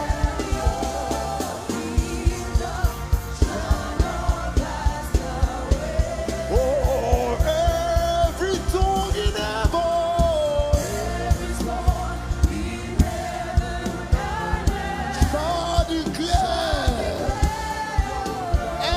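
Live gospel music: a lead singer with voices joining in, over a band with a steady drum beat.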